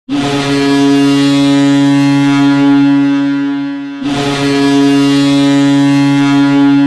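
Boston Bruins goal horn sounding two long blasts, the first about four seconds and the second about three. Each blast is a steady, loud low tone with many overtones.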